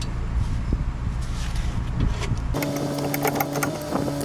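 Scattered metal clicks of a socket and wrench working the 14mm bolts on a mini truck's front strut rod, over a fan's steady noise. About two and a half seconds in, the background changes suddenly to a steady hum.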